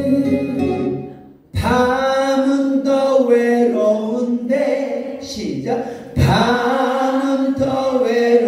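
Singing of a song with musical accompaniment, in held phrases. There are short breaks about a second and a half in and again about six seconds in.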